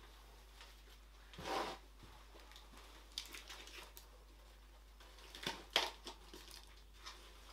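Clear plastic cups, lids and a tub being handled: a scrape about one and a half seconds in, then scattered crinkles and clicks, with a burst of sharp plastic clicks just before six seconds.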